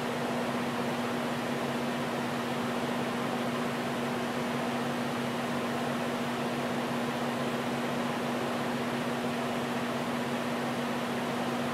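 Steady hum and even air noise of a running electric fan, with no change.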